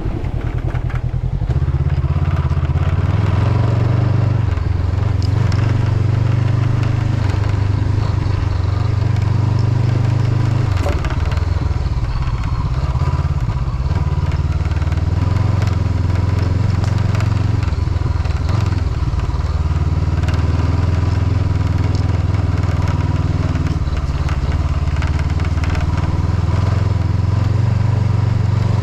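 Honda CB500X parallel-twin engine running steadily under way, with a constant rattle from the windshield, which has lost one of its mounting screws. The engine note dips briefly about eleven seconds in.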